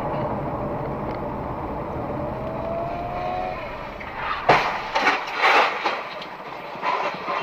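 Steady road and engine drone inside a car, then a sudden loud crash about four and a half seconds in as a van collides with a motorcycle, followed by several more loud, irregular crashing noises.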